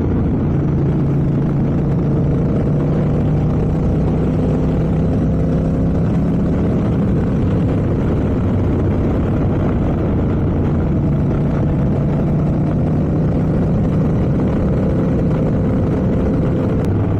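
Motorcycle engine running at a steady cruise, its note holding nearly constant, over an even rush of wind and road noise.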